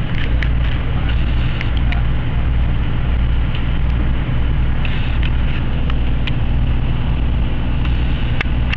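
Steady low rumble of a car engine running, heard from inside the cabin, with scattered light clicks over it.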